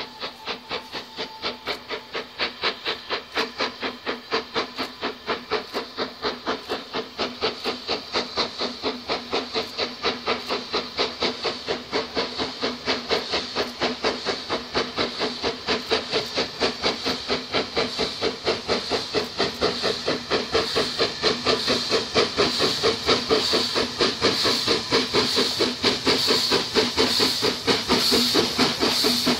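BR Standard Class 4MT 4-6-0 steam locomotive, a two-cylinder engine, working a train under steam: a rapid, even chuffing from its exhaust that grows steadily louder as it approaches.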